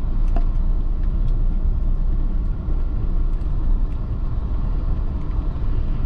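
Road noise heard inside a moving car on a cobblestone street: a steady low rumble from the tyres and engine, with a few faint ticks.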